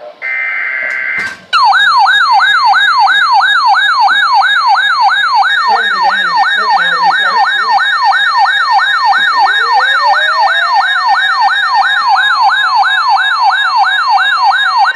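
Emergency Alert System broadcast: a brief buzzing burst of the digital header data, then a loud alert tone that warbles rapidly up and down like a siren, about two and a half sweeps a second.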